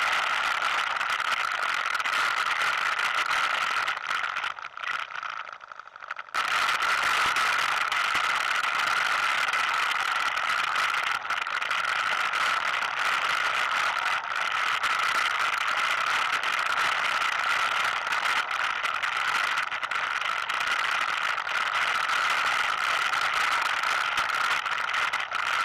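ATV engine running steadily while riding a rough dirt trail, with rattling from the machine. The sound falls away for about two seconds roughly four seconds in, then comes back suddenly.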